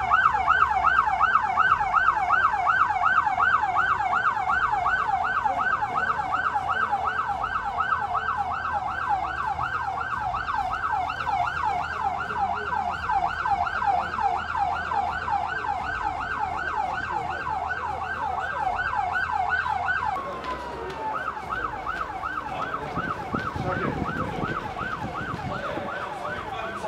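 Electronic siren on a fast yelp, a rising sweep repeated several times a second, sounding as a fire alarm in an evacuation drill. About 20 s in it gives a short falling glide and then carries on quieter.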